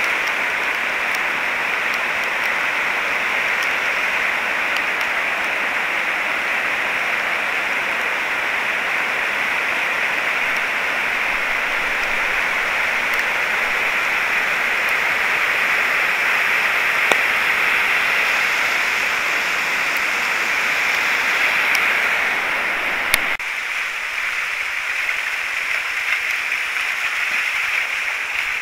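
Steady rush of a rain-swollen river pouring over a weir and through whitewater rapids. About three-quarters of the way through there is a sharp click, and the sound changes abruptly to a thinner, lighter rush of shallower water.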